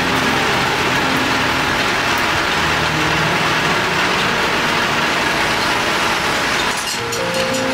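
Metal lathe running steadily, a dense mechanical noise. Faint low tones shift underneath, and a few ticks come near the end.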